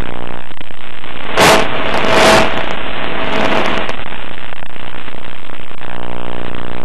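Onboard audio of an RC plane's electric motor humming steadily. The hum drops out about half a second in and comes back near the end. In the gap there are loud bursts of hiss, the strongest about one and a half and two and a half seconds in.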